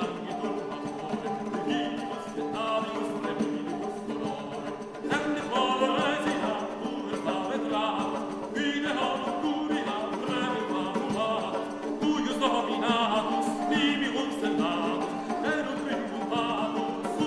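Music: a melody over a held drone note that sounds throughout.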